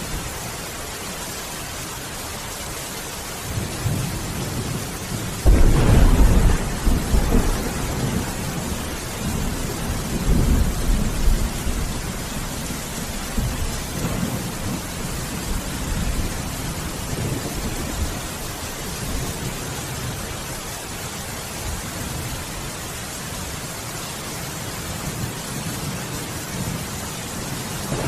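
Steady heavy rain hiss throughout a thunderstorm. A loud clap of thunder breaks about five seconds in and rolls on in deep rumbles for several seconds before fading back under the rain.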